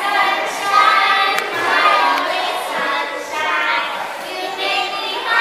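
A small group of young children singing a song together.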